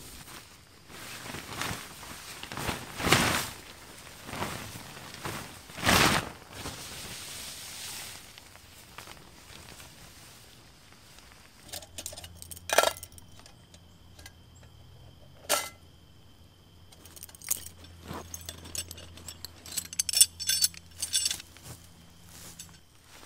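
Handling noises: rustling and a few knocks, then light metallic clinks and jangles, coming thickest near the end.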